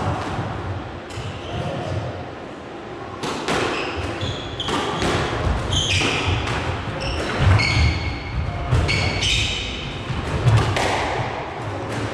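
Squash rally: the ball cracking off rackets and court walls at irregular intervals of about a second, with short high squeaks of shoes on the court floor and thudding footsteps.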